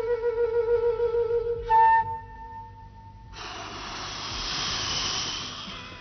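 Solo flute holding a low wavering note, then a short, louder, higher note about two seconds in. After a brief gap, a long breathy rush of blown air fills the second half, swelling and then fading.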